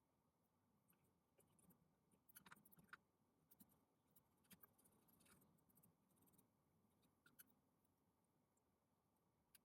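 Near silence with faint, scattered small clicks and light scrapes, bunched in the first half, from small hand tools working on a laptop display.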